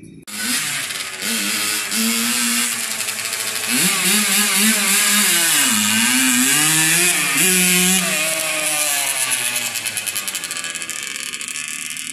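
Small two-stroke dirt bike engine running and being revved, its pitch rising and falling several times: up about four seconds in, down near the middle, up again, then easing off near the end.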